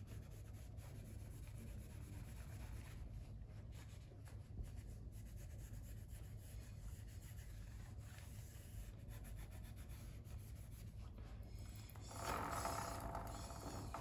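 Faint rubbing and light ticking as a vinyl rim sticker is pressed down and smoothed onto a motorcycle wheel rim, over a low steady hum, with a louder stretch of rubbing about twelve seconds in.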